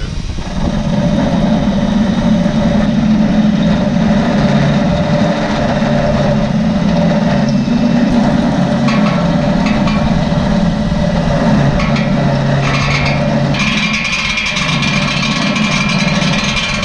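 A power tool motor running steadily while it cuts through metal. A harsher, higher grinding sound joins in about nine seconds in and again about halfway through the second half.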